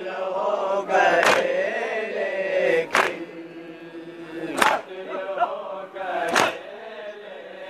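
A group of men chanting a Shia noha lament together. Four sharp, loud slaps fall in a steady beat about every 1.7 seconds: matam, hands striking chests in time with the noha.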